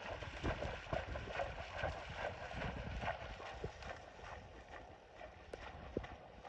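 Horse cantering through shallow water, its hooves splashing in a steady rhythm that grows fainter over the last couple of seconds as it moves away.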